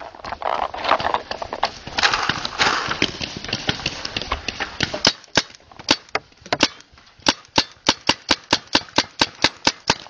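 Paintball markers firing: sharp pops, scattered at first, then a rapid even string of about five shots a second over the last three seconds.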